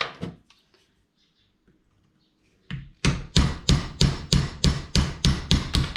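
Hammer blows on a screwdriver, a single knock and then a quick, even run of strikes about three a second, driving the screwdriver through the insert of a wiper switch knob to knock it out.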